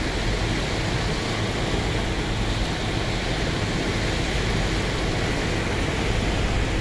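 Small waves washing and breaking onto a rocky shore, over the steady low hum of a running engine.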